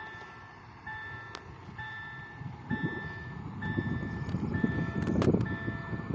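Electronic warning beeps, a two-tone signal repeating about once a second, while an electric multiple unit pulls away with a low rumble that grows louder from about halfway through.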